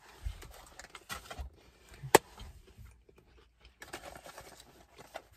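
Fast-food packaging being handled and rustled, with small clicks and one sharp click or tap about two seconds in.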